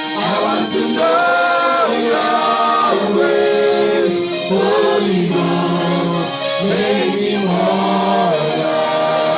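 Choir singing a slow gospel worship song, with long held notes that glide between pitches.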